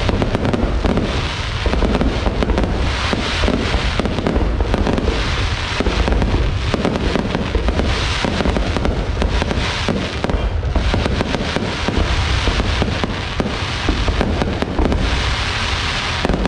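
Dense, continuous crackling and popping over a heavy low rumble, with no break.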